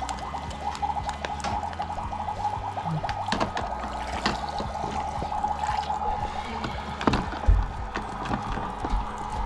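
Water running steadily, with scattered light knocks and clinks; the loudest knock comes about three quarters of the way through.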